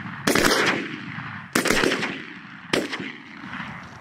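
Three shotgun shots about a second and a quarter apart, each trailing off in a long rolling echo, fired at wildfowl flying in over decoys.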